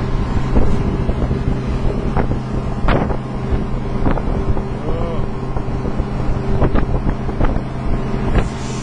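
Volvo diesel engine of a wooden boat running steadily under way, a constant low hum over the rush of water along the hull and wind on the microphone, with a few short sharp knocks.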